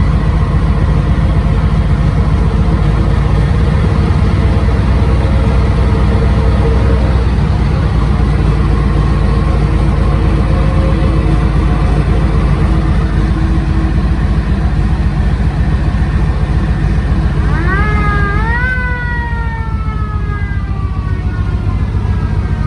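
M3A1 Stuart light tank's engine running steadily. About three-quarters of the way through, the tank's siren comes on, quickly winding up in pitch and then slowly winding down over the engine.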